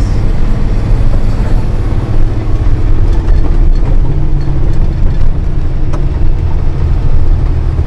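Heavy truck's diesel engine running under way, heard from inside the cab as a steady low drone; the engine note changes about four seconds in, and there is a single sharp click near six seconds.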